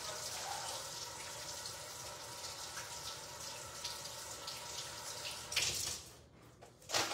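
Kitchen faucet running steadily while hands are washed under it, the water shutting off about six seconds in. A short sharp sound follows just before the end.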